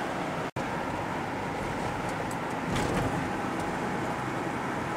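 Steady running and road noise of a motor vehicle, broken by a brief dropout about half a second in.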